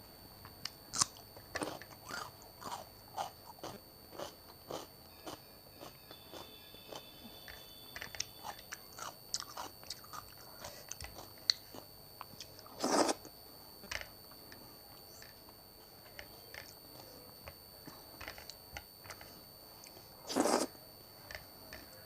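Close-miked chewing of a meal of masala khichdi, dal, curd and cucumber, with many soft wet mouth clicks and smacks. Two louder, longer crunches come about halfway through and near the end.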